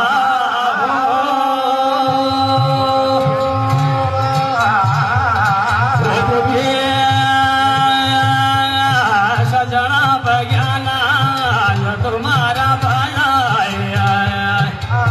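Jagar devotional song to goddess Nanda: a male singer draws out long held notes with vibrato, two long phrases in a row, over a low rhythmic accompaniment.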